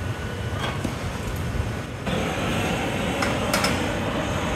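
Handheld gas torch opening up about two seconds in with a steady rushing hiss as its flame heats the neck of a blown glass vase, over a steady background drone. A couple of light clicks come near the end.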